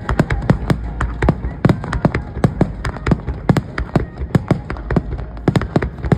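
Fireworks exploding overhead in quick, irregular succession, several sharp bangs a second over a steady low rumble.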